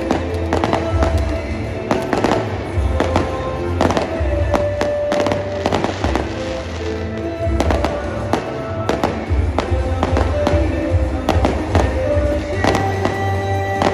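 Aerial fireworks bursting in an irregular string of sharp bangs, with music playing underneath.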